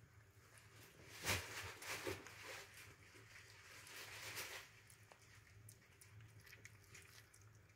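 Mother cat chewing and biting at a dead newborn kitten: faint wet mouth sounds, with a few short chewing bursts in the first couple of seconds and a longer stretch around the middle.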